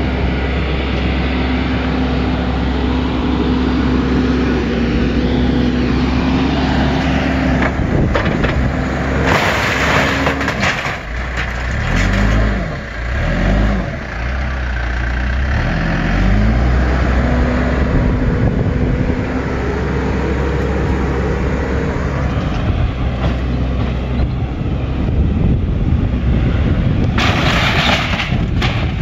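Diesel engine of a Case wheel loader running under load, rising and falling in pitch as it revs, with crashing and scraping of sheet-metal siding and timber as the bucket pushes into a shed wall. The loudest crashes come about ten seconds in and again near the end.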